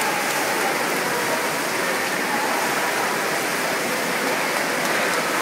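Steady, echoing wash of splashing from swimmers racing down the lanes of an indoor pool.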